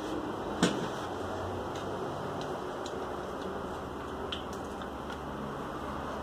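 Small objects being handled: one sharp click about half a second in, then scattered faint ticks and taps, over a steady low hiss.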